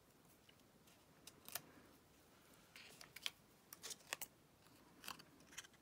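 Faint, irregular small clicks and taps of fingers handling card-stock pieces and adhesive foam dimensionals on a cutting mat.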